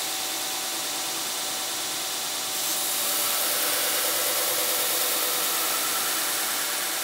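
Belt grinder running with a steady motor hum and belt hiss. About two and a half seconds in, a steel knife blade is pressed to the abrasive belt and a louder, harsher grinding hiss sets in and holds.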